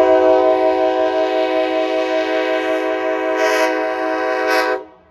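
Locomotive multi-chime air horn sounding one long blast, a chord of several notes held steady, cutting off abruptly near the end.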